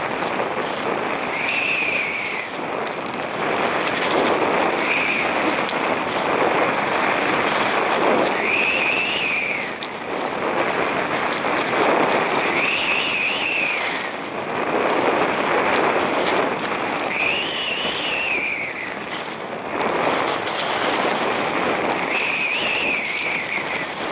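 Skis scraping and chattering over hard, chopped-up piste snow through repeated turns, the noise swelling with each turn. A brief squeal that rises and falls comes at the height of a turn about every four seconds.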